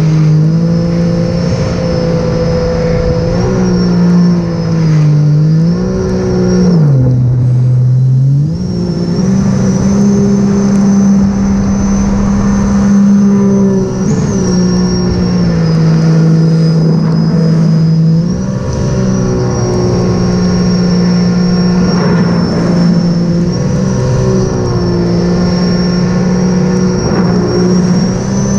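Sea-Doo RXP-X 300 personal watercraft's supercharged three-cylinder Rotax engine running hard at speed, with a steady high whine above the engine note. The pitch sags about five seconds in, drops lowest around seven to eight seconds as the throttle eases, then climbs back. It eases again briefly around the middle and holds high near the end.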